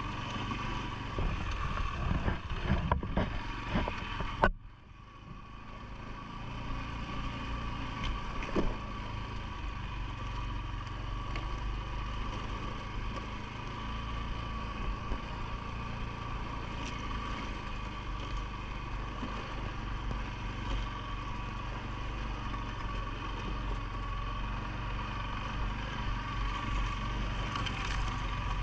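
CFMOTO ATV engine running at a steady pace, with knocks and rattles over the first few seconds and a sudden brief drop in level about four and a half seconds in.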